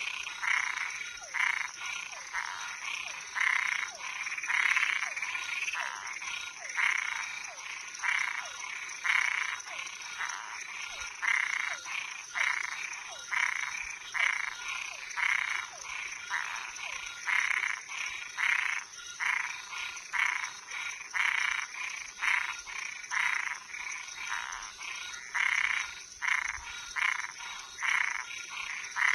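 Frogs and treefrogs calling in a dense chorus: short, rasping calls repeating one to two times a second, over a steady high-pitched trill.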